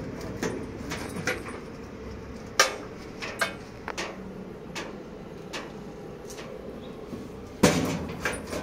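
Steel almirah's internal locker door being worked: a sharp metal click as it opens about two and a half seconds in, a few light metallic taps and clicks, then a loud ringing metal clack as the door is shut near the end.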